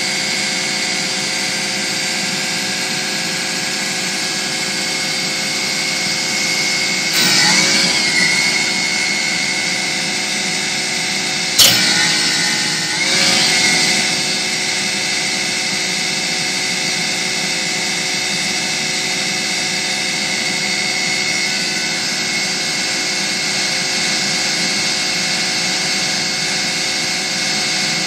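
Compact track loader running with a Bobcat SG60 stump grinder driven by its hydraulics, a steady machine whine made of several tones. Twice, about a quarter and about halfway through, the sound swells and its pitch dips and recovers as the hydraulics take load. A single sharp clack comes just before the second swell.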